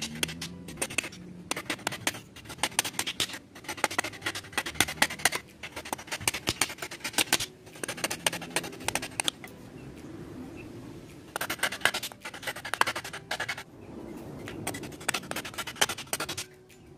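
Butcher knife chopping into the wood of a ladle blank in quick runs of sharp, short strokes, sometimes driven by a wooden mallet on its spine, with short pauses between the runs.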